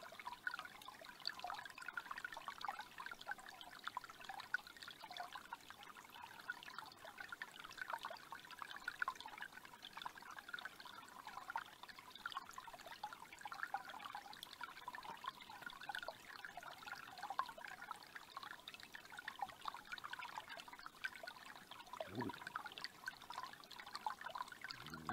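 Faint, steady trickling of a small forest creek's shallow water.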